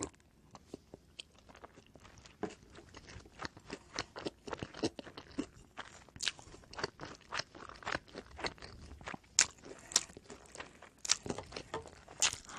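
Close-miked chewing of oven-baked pizza bread: a steady run of crisp crunches and crackles as the toasted crust is bitten and chewed, at an irregular pace.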